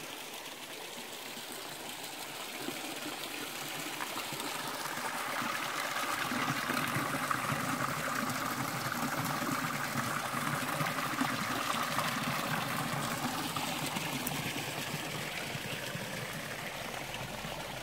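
Small garden waterfall: water trickling and splashing through a gap in a low stone wall into a pond. It grows louder a few seconds in and fades again near the end.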